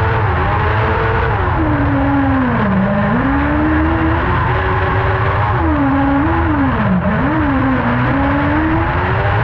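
Kart cross buggy's engine at racing speed, heard from the cockpit, its revs rising and falling, dropping sharply twice (about three seconds in and about seven seconds in) and climbing again each time.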